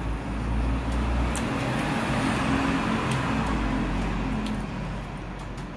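Steady rumble of motor-vehicle traffic passing outside, easing off about a second before the end, with a few faint clicks.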